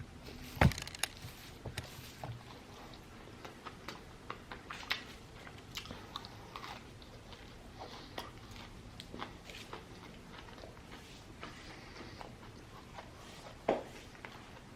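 Close-up chewing and crunching of a crispy fried chicken sandwich, with scattered wet mouth clicks throughout. A loud sharp click comes about half a second in, and another near the end.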